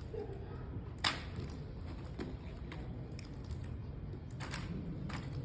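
Drill rifle being handled during an armed exhibition routine: scattered faint taps and clicks of hands and rifle, with one sharper slap about a second in, over a steady low room hum.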